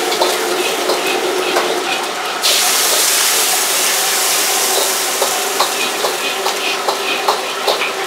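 Commercial wok station in use: fish frying in oil in a wok, with a steady burner hum and frequent clinks of a metal ladle against woks and bowls. A louder, sharper hiss cuts in about two and a half seconds in and holds steady.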